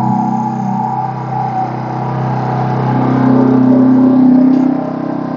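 1.5 kVA inverter generator's engine running, its pitch shifting and the sound getting a little louder about three seconds in as it is switched to turbo mode to take more load.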